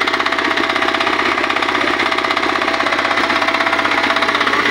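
A walking tractor's 188F single-cylinder air-cooled engine running steadily at an even speed, with a fast, regular firing beat.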